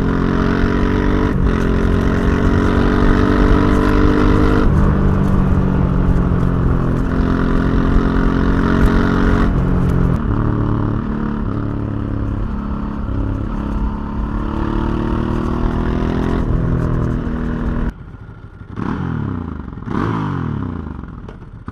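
Ducati Hypermotard 1100S's air-cooled L-twin on its stock exhaust, ridden: the engine note climbs and steps down several times as it pulls through the gears. About 18 s in the throttle closes and the sound drops sharply, followed by two quick revs that rise and fall.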